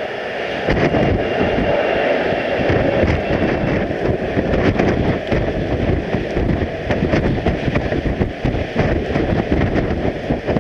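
Strong, gusty wind buffeting the microphone, with the faint steady whine of a jet airliner's engines through the first few seconds.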